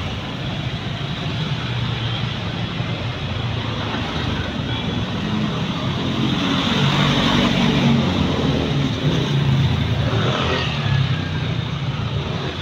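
Road traffic: motor vehicles running past on a busy street, the engine noise swelling a little past the middle and easing off again.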